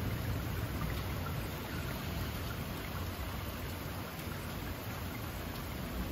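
Steady rain falling through pine trees, an even hiss of drops.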